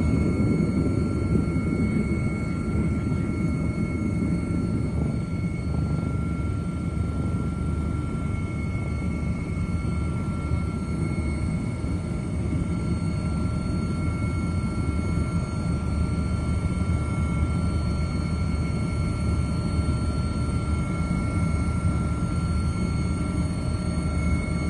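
Helicopter heard from on board, running steadily: a constant low rumble of engine and rotor with thin steady high tones above it.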